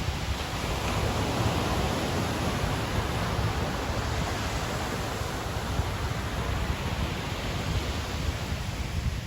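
Ocean surf on a beach: a continuous rush of breaking and washing waves that swells about a second in, then settles into a steady hiss.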